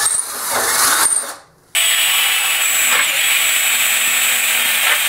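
Cordless drill boring out a stripped, rusted bolt hole in a motorcycle bracket for about a second and a half. After a brief gap, a small grinder with an abrasive disc runs steadily with a high whine, grinding back the metal around the hole before it is welded shut.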